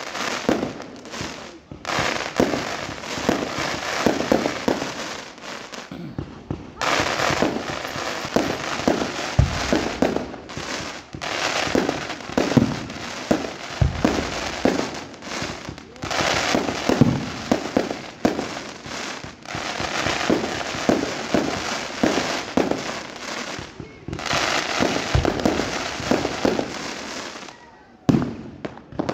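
Aerial fireworks bursting in rapid volleys of bangs and crackling, with short lulls about six seconds in and near twenty-four seconds, dying away near the end.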